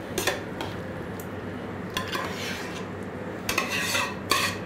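A spoon scraping the inside of a stainless-steel pot as a creamy mixture is emptied into a steel baking dish: a few clinks at first, then a run of louder scraping strokes near the end.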